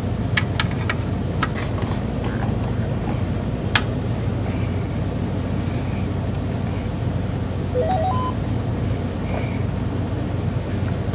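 Samsung flat-panel TV powering up: a sharp click a little under four seconds in, then a short rising chime of a few notes about eight seconds in, over a steady low hum. The chime shows the repaired set has come back on.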